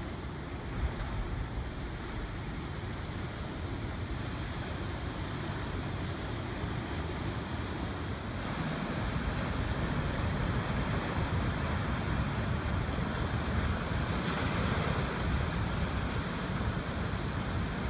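Ocean surf breaking and washing over lava rocks, a steady rushing noise with wind rumbling on the microphone. It gets louder about halfway through.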